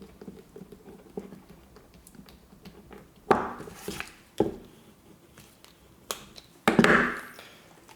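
Screws being driven into a plastic electrical plug with a small screwdriver: light clicks and scrapes, with a few louder knocks and rustles of the plug parts being handled.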